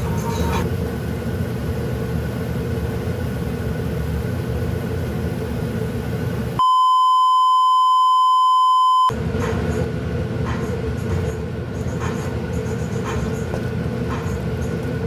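Seasoning sauce boiling in a frying pan, a steady bubbling rumble. About six and a half seconds in, this gives way to a loud, steady test-tone beep lasting about two and a half seconds. The pan noise then returns with a few light scrapes as a wooden spatula stirs chili powder into the sauce.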